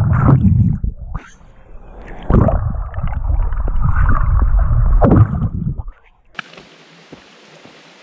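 Water sloshing and splashing right at the microphone, with loud rumbling knocks of the camera being handled. About six seconds in, this gives way to the steady hiss of a flowing creek.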